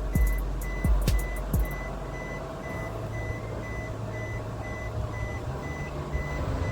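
An electronic beeper sounding short high beeps about two and a half times a second, like a vehicle reversing alarm. Deep bass-drum beats of music come in the first couple of seconds, and a steady low hum runs under the beeping after that.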